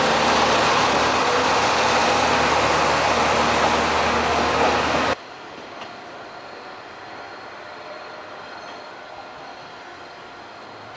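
Kanto Railway Joso Line diesel railcar passing close by, its engine running and its wheels running over the rails. About five seconds in, the loud train sound cuts off abruptly to a much quieter background with a faint steady high tone.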